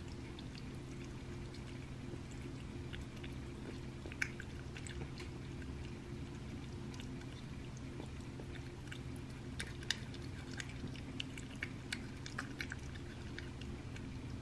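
A cat chewing raw rabbit meat: wet, clicking mouth sounds, scattered at first and coming thicker in the second half, with the two sharpest clicks about four and ten seconds in. A steady low hum runs underneath.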